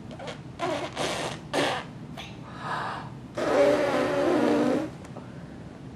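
A baby making funny noises with his mouth: a few short, breathy blowing bursts, then a longer, louder sputtering one about three and a half seconds in that lasts about a second and a half.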